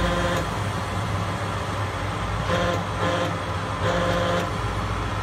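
Steady low mechanical hum of a running motor or engine, with a higher steady drone that comes in and drops out three times.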